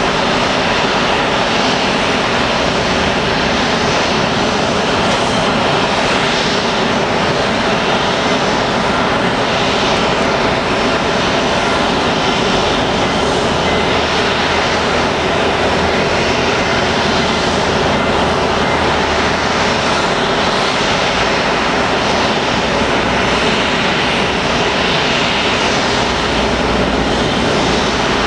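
Jet engines of a Boeing 737-500 running steadily during pushback: a continuous, even rush and whine with no breaks.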